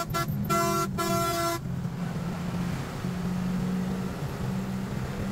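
A vehicle horn honks, a short blip then one blast held about a second, over the steady low drone of a bus's engine and tyres at highway speed.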